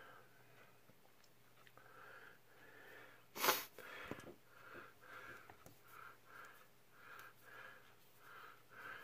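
A man breathing, faint and wheezy, with one short, loud exhale about three and a half seconds in, followed by quick, even breaths about two a second.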